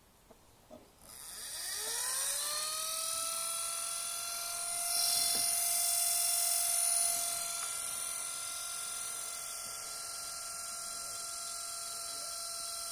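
Lenovo B570 laptop cooling fan spinning up about a second in: a rising whine that levels off into a steady high-pitched whine over a loud hiss, louder for a couple of seconds midway. It is the abnormal fan noise of a faulty fan in a week-old laptop.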